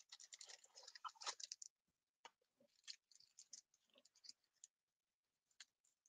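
Faint crinkling and small clicks of foil trading card packs being handled, a dense cluster in the first second and a half, then a few scattered ticks.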